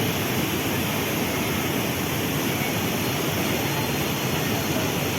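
Waterfall rushing, a steady, loud roar of falling water.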